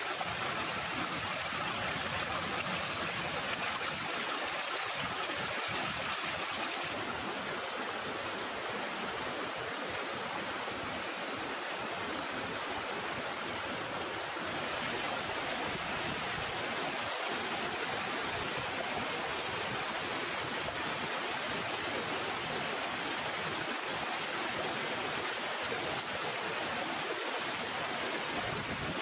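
A shallow rocky stream flowing, a steady rush of water over stones.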